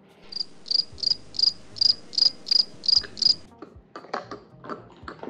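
Cricket-chirp sound effect: about nine even chirps, roughly three a second, that start and stop abruptly after about three seconds. A few soft clicks and taps follow.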